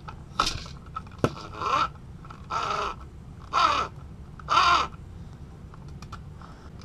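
Plastic gears in an RC car's rear gearbox and open differential whirring as the axle shafts are twisted by hand, five short whirs about a second apart, each falling in pitch as the spin slows.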